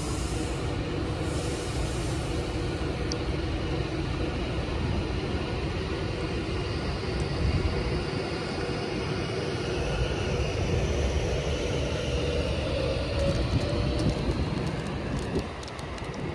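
Avanti West Coast Class 390 Pendolino electric train pulling out, with a steady rumble of wheels on rail and a motor hum that rises slightly in pitch as it gathers speed. Light clicking comes near the end, and the sound drops as the last coach passes.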